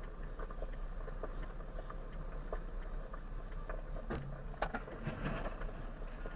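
Steady low drone of a moving car's engine and road noise, picked up inside the cabin by a dashcam, with scattered light clicks and rattles and two sharper clicks about four seconds in.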